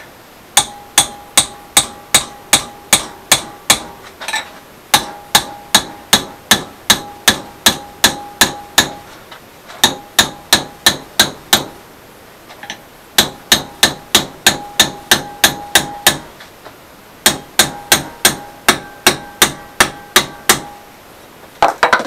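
Hammer striking a steel rod clamped in a bench vise, bending it into a pump handle. Five runs of quick, even blows, about two and a half a second, with short pauses between, each blow ringing.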